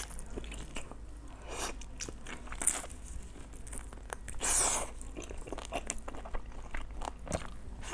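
Close-miked biting and chewing of a glazed deboned chicken wing: scattered short bites and mouth clicks, with one louder, longer bite about four and a half seconds in.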